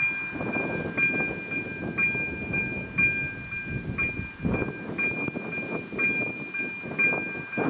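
Czech level crossing's electronic warning bell ringing a steady two-tone ding at about two strokes a second: the crossing warning is active for an approaching train. Gusty wind rumbles on the microphone underneath.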